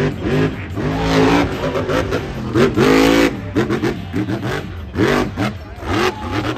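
Grave Digger monster truck's supercharged V8 revving hard in repeated bursts, its pitch rising and falling about once a second as the truck drives its freestyle run and goes over a jump.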